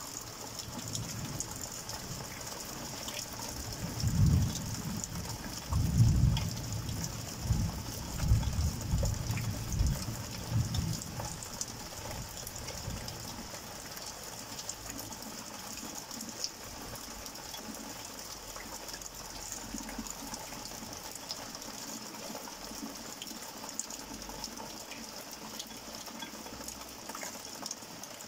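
Heavy rain falling steadily, a constant hiss with fine pattering. From about four seconds in, thunder rumbles low in several surges for some seven seconds, the loudest part, then dies back under the rain.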